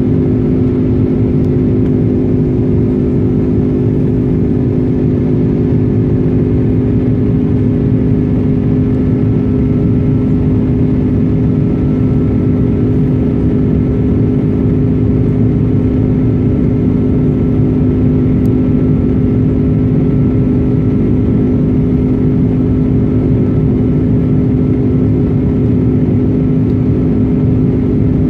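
Inside the cabin of an Airbus A330 climbing after takeoff: a steady drone of its jet engines with a low rumble and a constant deep hum.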